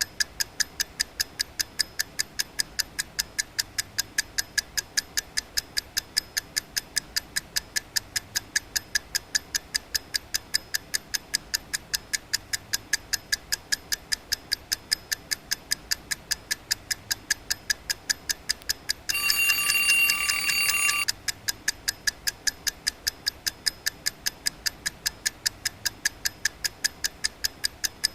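Alarm clock ticking fast and evenly, about three to four ticks a second. Its alarm rings steadily for about two seconds about two-thirds of the way through, then cuts off and the ticking goes on.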